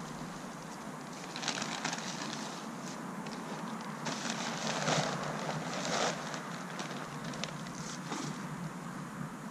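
Steady rustling hiss of wind outdoors, broken by scattered crackles and scuffs, the busiest about four to six seconds in.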